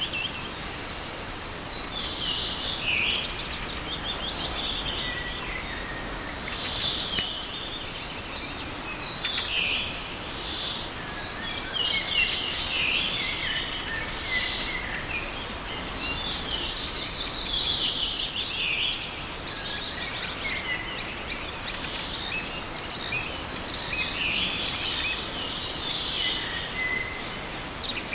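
Several songbirds singing, with phrases and quick trills every few seconds, over the steady rush of a small forest river.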